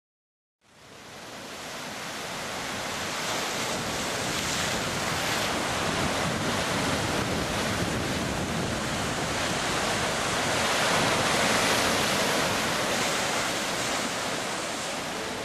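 Ocean surf: waves washing and breaking in a steady rush that fades in just after a moment of silence.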